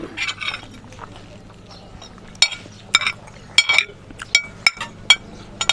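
Metal spoon and fork clinking and scraping against a ceramic plate as food is scooped up, with a run of sharp clinks in the second half.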